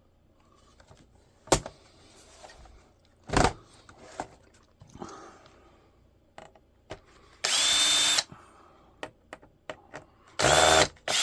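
Power drill run in two short bursts, each with a steady high motor whine, backing screws out of an old Dell laptop's case. Scattered clicks and knocks of handling come before them.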